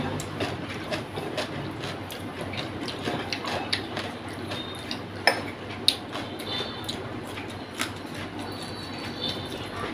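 Eating by hand: fingers picking at a fried parshe fish on a plate, with chewing and many small clicks against the plate. Two sharper clicks come about five and six seconds in.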